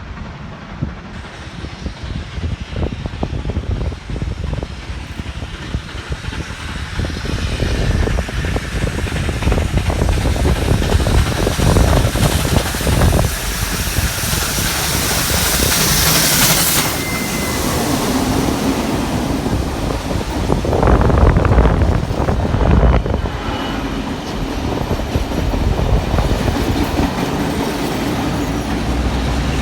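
A train running by, its wheels clicking over the rail joints and growing louder toward the middle.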